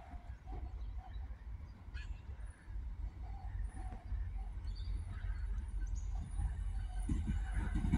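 Adelaide 3000/3100 class diesel railcar approaching, a low rumble growing louder, with a rhythmic throb setting in near the end. Faint bird calls over it.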